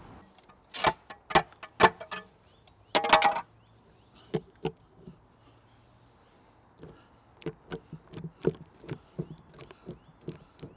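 Hand chain hoist on an A-frame lifting rig clicking as it is worked, its chain and pawl giving sharp metallic clicks. A few loud knocks come in the first few seconds, then a run of quicker, lighter clicks from about seven seconds in.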